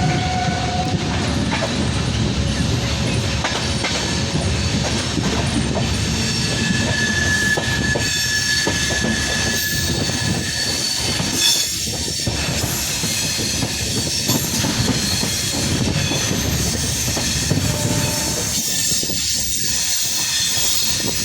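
A train running along the track with a steady rumble of wheels on rails. A thin, high wheel squeal holds for a few seconds near the middle.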